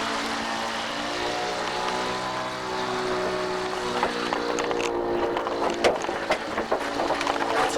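Petrol lawn mower engine running steadily, with several sharp knocks and clatters in the second half.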